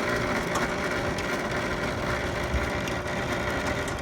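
Electric chain-drive opener motor running steadily under load, driving the chain without stopping: it is overrunning its magnetic limit switch.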